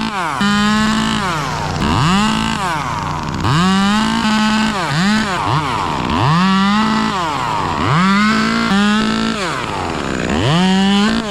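Two-stroke chainsaw revved repeatedly. About seven times the engine climbs quickly to full throttle, holds for a second or so and drops back toward idle, as in cutting through wood piece by piece.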